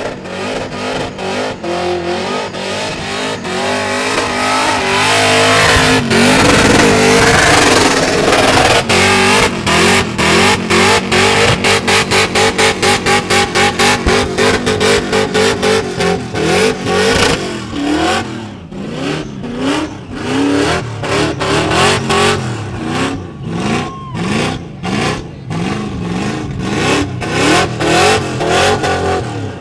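Supercharged V8 of a Holden VL Commodore held at high revs in a burnout, with the rear tyres spinning. It pulses evenly and rapidly through the middle, then rises and falls in short revving blips toward the end.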